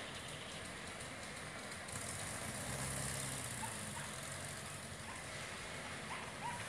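Steady roadside traffic noise from a line of cars idling and starting to move off, with a low engine hum that swells in the middle.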